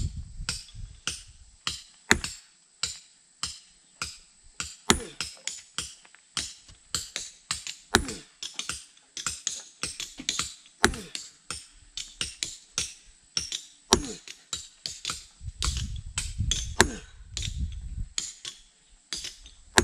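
A quick, irregular series of sharp knocks or blows, about two to three a second, some followed by a short falling ring.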